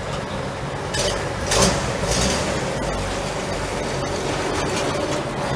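Engines of WWII-era military trucks running at low speed, a steady low rumble as they move off slowly. About a second and a half in there is a short loud rush of noise.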